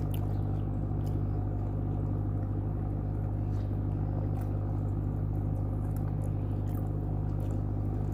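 A steady low hum runs without change throughout, with a few faint short clicks from eating on top.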